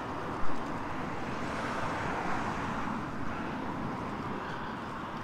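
Steady noise of road traffic, swelling slightly in the middle, with one sharp knock about half a second in.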